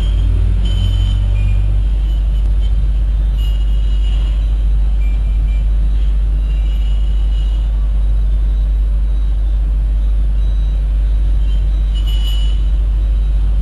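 Busy mixed street traffic of cars, auto-rickshaws and motorbikes: a steady loud rumble with a deep hum underneath and short high tones now and then.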